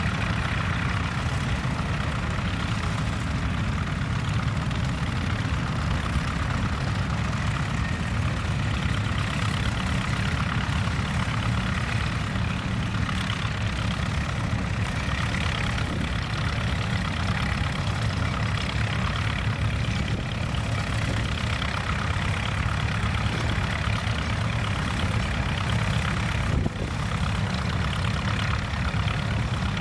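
Tractor engine running steadily at a low, even rumble, with no change in speed.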